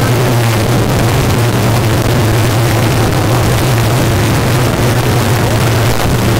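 Rally car's engine running hard at steady revs, heard inside the stripped cabin, with a constant rush of gravel and road noise.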